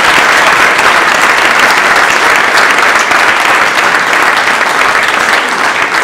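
Loud, steady audience applause: many people clapping at once.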